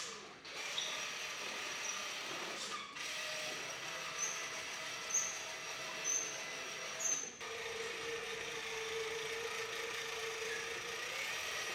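Electric drive motor and gearing of a hand-built remote-control Model T Ford, taken from a ride-on car, whirring steadily as the car drives. The sound briefly drops out three times.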